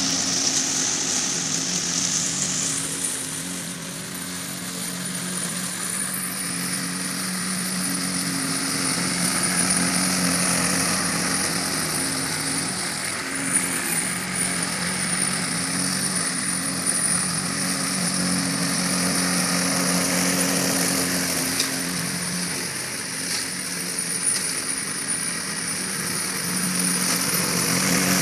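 Radio-controlled lawn mower's small motor running steadily, its sound swelling and dipping gently in loudness.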